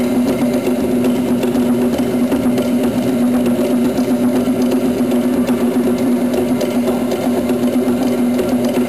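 Fast, unbroken drumming on wooden log drums: a dense, rapid rattle with a steady ringing pitch that never pauses.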